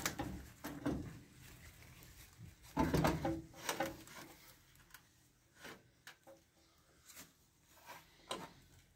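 A battery being set into a tractor's metal battery box: its case knocks and scrapes against the metal, loudest about three seconds in, followed by a few lighter clicks.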